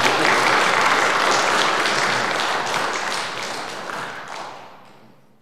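Audience applauding, many hands clapping at once; the applause fades away over the last two seconds.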